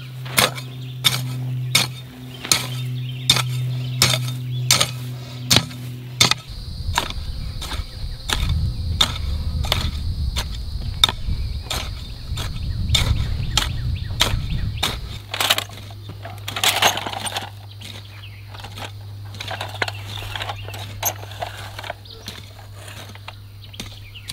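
Garden hoe chopping into dry soil over and over, roughly two strikes a second, cultivating between rows of seedlings. A steady low hum runs underneath.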